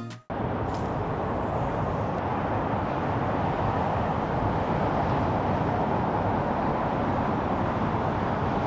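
Steady drone of freeway traffic, an even rushing noise without distinct events.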